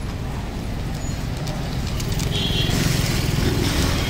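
Street traffic noise, a motorbike engine running close by, growing a little louder after about two seconds, with a few faint clicks.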